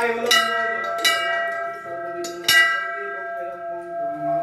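Temple bell hung from the ceiling, rung by pulling the rope on its clapper: three strikes, the third after a longer gap, each leaving a long ringing tone that carries on under the next.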